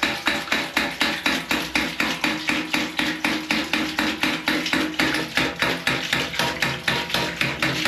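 Hydraulic ram pump's swing check (waste) valve slamming shut over and over in an even, rapid clacking, about four strikes a second, as it is cycled by hand to get the pump running, with water spurting from the valve.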